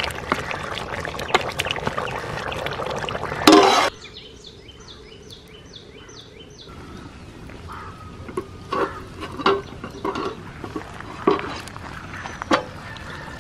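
Thick mutton curry boiling hard in a pot and being stirred with a wooden spoon: dense bubbling with many wet clicks, which cuts off abruptly about four seconds in. After that it is much quieter, with a quick run of about ten high chirps and then scattered light knocks.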